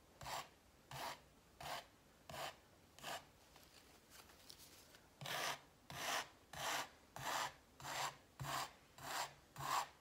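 Hair pick scraping across a canvas through wet acrylic paint in short repeated strokes, about one every 0.7 seconds, with a pause of about two seconds partway through.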